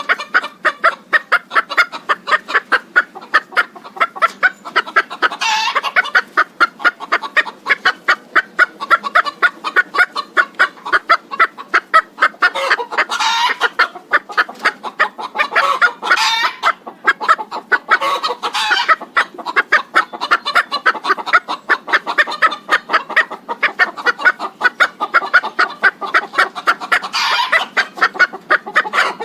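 Flock of chickens clucking in a dense, rapid run of short clucks, with a few louder, higher calls rising above it now and then.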